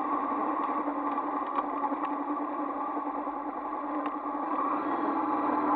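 Honda CBR500R's parallel-twin engine running steadily on the move, over a steady rush of wind and road noise; it eases off a little midway and picks up again near the end.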